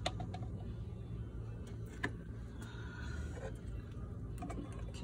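A few light clicks and taps of plastic as a funnel is lifted out of the engine's oil filler neck and the oil filler cap is picked up, one sharper click about two seconds in, over a steady low rumble.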